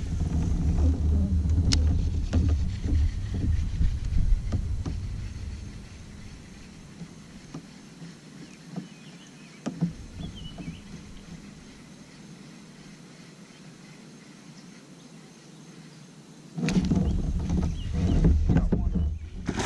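Wind buffeting the microphone in a low rumble. It eases off about six seconds in and gusts back in strongly near the end. In the quieter stretch there are a few faint clicks as a fishing reel is cast and cranked.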